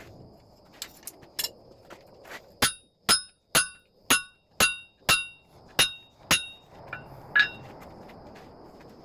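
Hand hammer striking hot steel on an anvil: a run of about a dozen blows, roughly two a second, loudest in the middle, each with a bright metallic ring.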